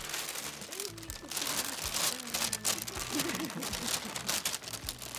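Plastic shopping bag rustling and crinkling continuously as it is pulled open and a kitten climbs around inside it.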